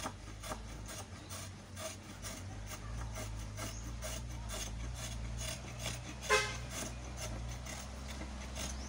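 Hand chisel shaving wood off a rough block, in repeated scraping strokes about two a second. About six seconds in, a short pitched cry, the loudest sound, breaks in over a low steady hum.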